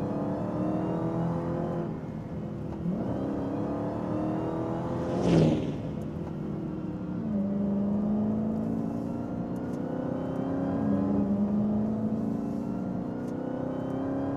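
Dodge Charger SRT Hellcat's supercharged 6.2-litre V8 accelerating hard through the gears, its pitch climbing and then dropping back at each upshift, about four runs in all. A short whoosh sounds about five seconds in.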